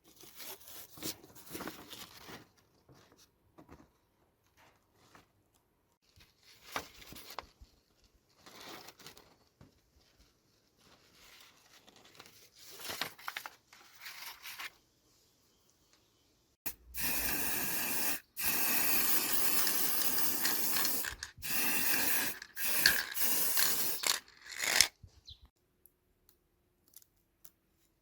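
Short, irregular rubbing and scraping strokes, then, more than halfway in, several louder stretches of continuous abrasive scraping lasting a few seconds each, with short breaks between them.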